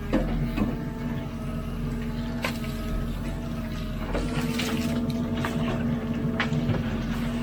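Hidromek 102B backhoe loader's diesel engine running steadily with a hydraulic whine while it digs. Scattered clicks and knocks, likely the bucket scraping soil and stones, sound on top, and a higher whine joins about four seconds in.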